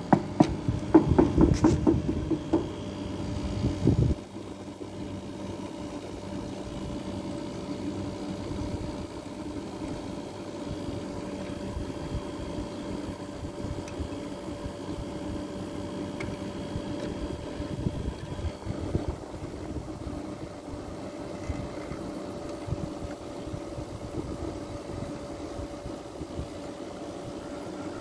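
Mid-1980s Fedders 4000 BTU window air conditioner running steadily, its Rotorex rotary compressor and fan giving an even hum with a clear steady tone; the compressor sounds healthy. A louder low rumbling noise fills about the first four seconds and cuts off abruptly.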